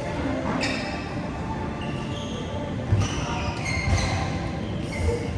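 A basketball dribbled on a court, three bounces about a second apart in the second half, with short high squeaks between them.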